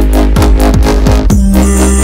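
Loud electronic music with heavy bass: deep notes that drop in pitch, a few times a second, with a held low note coming in about halfway through.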